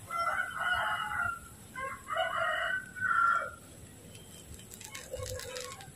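A rooster crowing over the first three seconds or so, in a few drawn-out pitched phrases.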